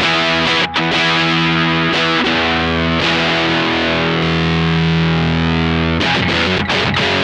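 Stratocaster electric guitar played through a Silver Keg fuzz pedal, giving thick fuzz-distorted chords. A few short strummed chords, then one chord held and sustaining for about three seconds, then a new run of chords near the end.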